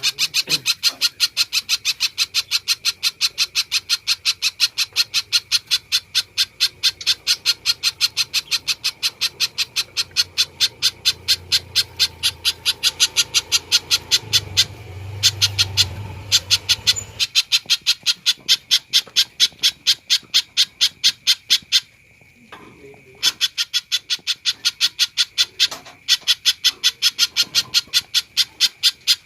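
Spiderhunter (pijantung) calling in full voice: a long run of sharp, rapid repeated notes, about four a second, with a short break about three quarters of the way through.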